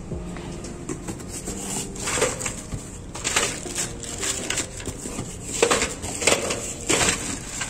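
Plastic bags crinkling and rustling, with light knocks of the boxed units against each other, as a hand sorts through plastic-wrapped energy meters in a cardboard box. The crackling comes in several separate bursts.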